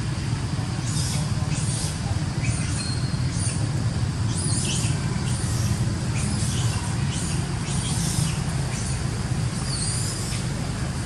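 Long-tailed macaques giving repeated short, high-pitched squeals and squeaks during rough play, over a steady low rumble.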